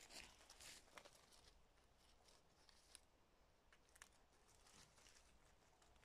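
Faint rustling and crackling of dry fallen leaves and twigs being stepped through, busiest in the first second or so, then only a few scattered crackles.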